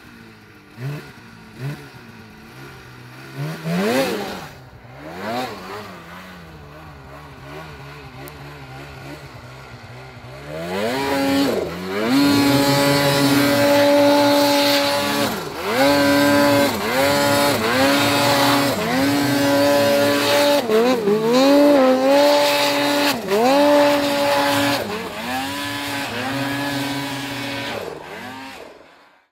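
Ski-Doo mountain snowmobile's two-stroke engine revving as it drives through deep powder: fairly quiet at first with one rev about four seconds in, then from about eleven seconds loud and high, the revs dropping and climbing back every second or two as the throttle is worked.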